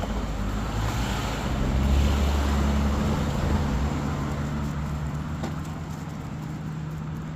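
Motor vehicle engine running close by, a low rumble that swells about two seconds in and then slowly fades as it passes.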